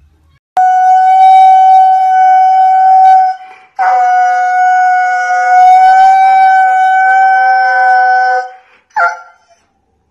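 Husky howling: two long howls held on one high, steady pitch, the second longer at about four and a half seconds, then a brief short call near the end.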